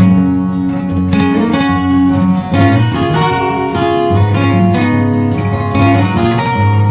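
Background music: guitar-led instrumental with plucked and strummed chords over a low bass line.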